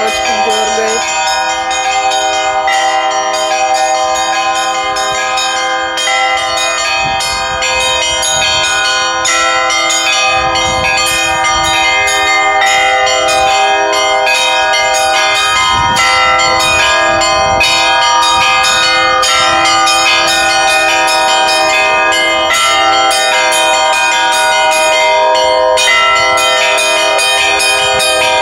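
Orthodox church bells being rung in the bell tower: several bells of different pitches struck in quick, overlapping strokes, each note ringing on under the next.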